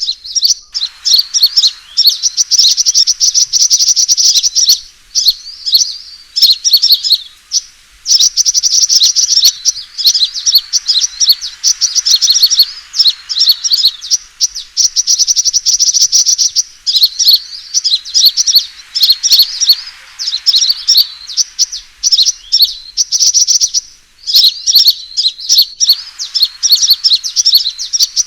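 Sunbird calls from a lure recording: rapid, high-pitched chirping and twittering trills in bursts of a few seconds with short breaks, the combative 'fighting' song used to draw in rival sunbirds.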